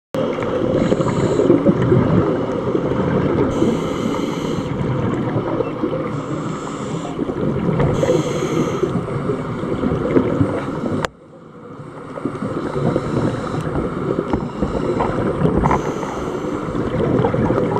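Scuba diver's breathing recorded underwater: a steady low bubbling churn, with a hiss from the regulator every few seconds. A sharp click about eleven seconds in, followed by a brief drop in level.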